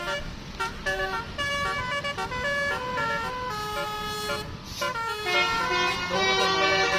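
Basuri telolet multi-tone horn playing a quick stepping melody of sustained, buzzy notes. There is a brief break about two-thirds of the way through, then a denser run of overlapping notes.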